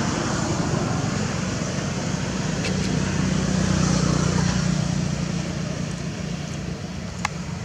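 Steady low hum of a motor vehicle engine running nearby, growing a little louder around the middle, with a single sharp click near the end.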